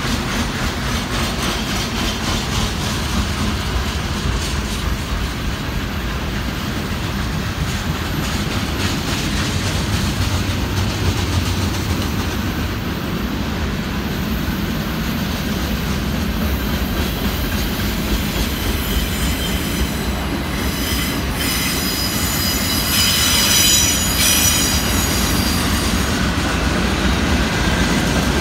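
Freight cars rolling past on the rails: a steady rumble and clatter of steel wheels over the track. About three-quarters of the way through, a high-pitched wheel squeal rises over it for a couple of seconds and is the loudest part.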